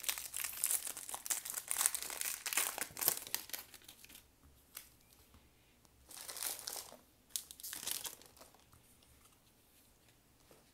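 Crinkly wrapper of a trading-card booster pack being torn open and crumpled: a dense run of crackling for about the first four seconds, then two shorter rustles about six and eight seconds in.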